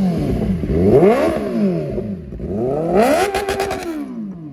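Motorcycle engine revved twice, its pitch climbing and dropping each time, with a quick run of crackles at the top of the second rev.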